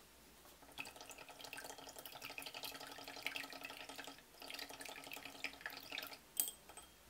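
A raw egg being beaten by hand in a ceramic bowl: quick, even strokes of the utensil clicking against the bowl and slapping the liquid, with a faint ringing from the bowl. The beating starts just under a second in, pauses briefly about four seconds in, and stops after about six seconds.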